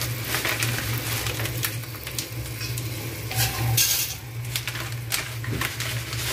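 Dry spaghetti rattling and clicking against a steel pot as it is shaken from a plastic packet into boiling water, with the packet crinkling, over a steady low hum.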